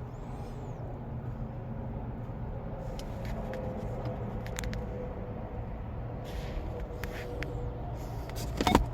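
Steady low background rumble with a few faint clicks, then a louder knock near the end.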